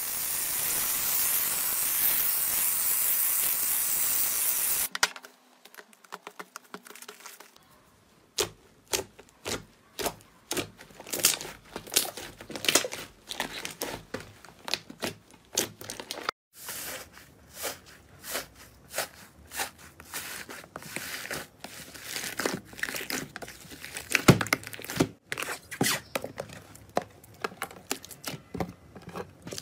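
An aerosol can spraying with a steady hiss for about five seconds. Then slime is squeezed and poked, with many quick sticky clicks and pops of trapped air.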